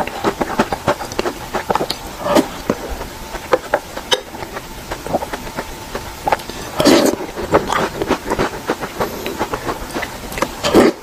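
Close-miked chewing of chocolate: a steady patter of small sharp clicks and crackles from the mouth, with three louder, fuller crunches about two and a half seconds in, about seven seconds in, and at the very end.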